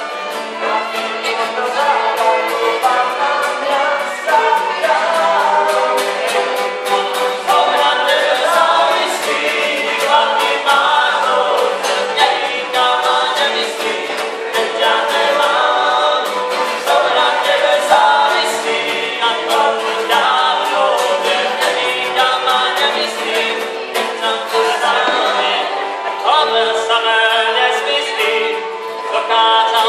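Cimbalom band of fiddles, acoustic guitar, double bass and cimbalom playing a folk song, with several men singing together over a steady strummed beat.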